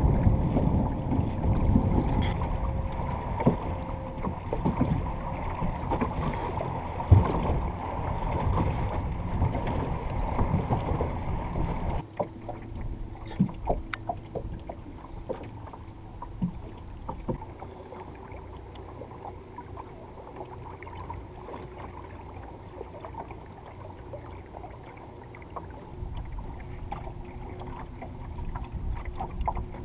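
Small electric-powered dinghy under way: water splashing and lapping against the hull, with wind on the microphone. About twelve seconds in it cuts to a quieter stretch with a faint steady motor hum and occasional small splashes.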